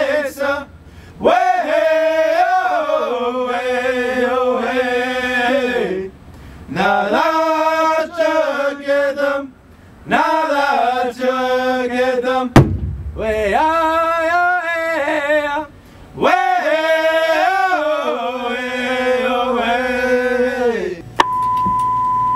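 A man's voice chanting or singing in long, slow phrases with held, wavering notes and short pauses between them. Near the end a steady high beep starts: an alert tone leading into a fire dispatch call.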